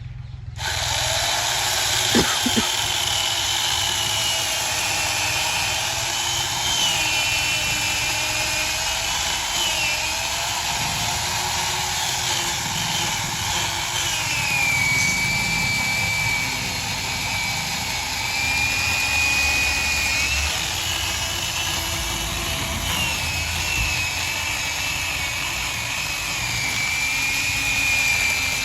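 Sawmill power saw cutting wood: a loud, steady machine noise that starts suddenly about half a second in, with a whine that drifts up and down in pitch as the cut goes on.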